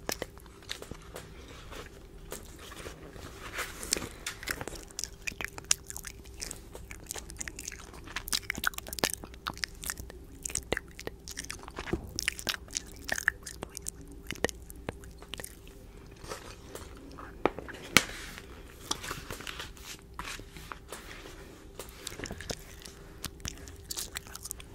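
Close-miked mouth sounds: irregular wet lip and tongue clicks and smacks, several a second, with one louder click about two-thirds of the way in.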